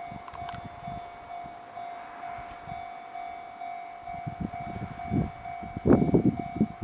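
Japanese railway level crossing warning bell ringing one repeated tone, about two strikes a second. From about four seconds in, a train's wheel rumble and clatter on the rails grows louder, loudest near the end.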